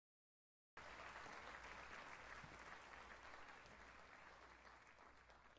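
Audience applauding, faint, starting about a second in after a moment of dead silence and slowly fading away toward the end.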